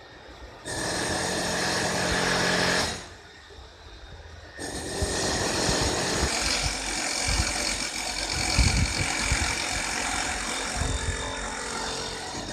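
Pool vacuum cleaner motor humming steadily for about two seconds, then after a short pause a continuous rushing noise with irregular low knocks.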